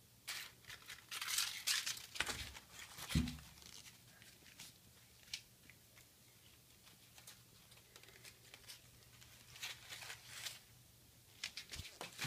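Crumpled paper ball crinkling in irregular spurts as a kitten bats and bites at it, with a soft thump about three seconds in.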